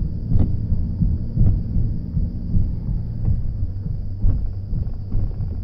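Car interior while driving: a low, uneven rumble of road and engine noise mixed with wind buffeting on the microphone, with a few light knocks.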